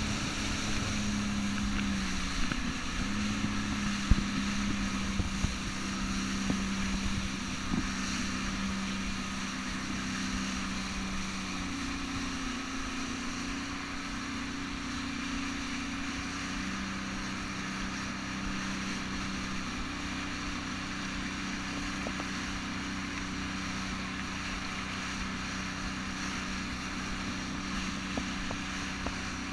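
Sea-Doo jet ski engine running at speed, its steady drone stepping up in pitch about twelve seconds in and settling back a few seconds later, under a constant rush of spray and wind on the microphone. A few sharp knocks come in the first several seconds.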